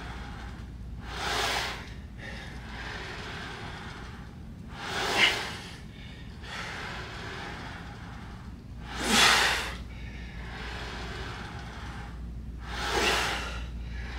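A man breathing hard through a slow leg press set: four loud breaths, one about every four seconds. A low steady hum runs underneath.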